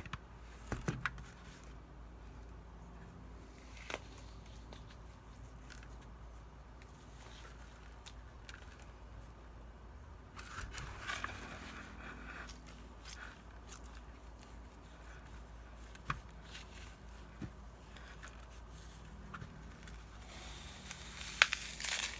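Floral foam being handled close up: scattered light taps and scratches, with a longer crumbly scraping stretch about ten seconds in and a hissy crunching near the end.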